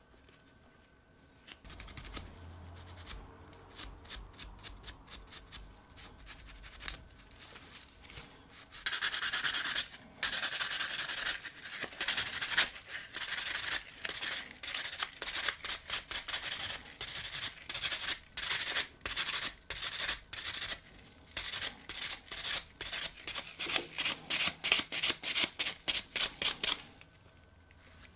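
Gloved hands rubbing a revolver's grip panel in repeated strokes. The rubbing is soft at first, then turns into loud scratchy strokes about a third of the way in, quickening to about three a second near the end.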